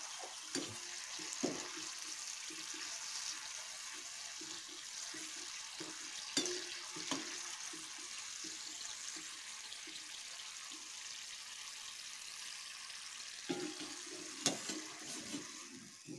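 Rice-flour batter strands deep-frying in hot oil in a kadhai: a steady sizzle, with a few light clinks of a steel slotted spoon against the pan.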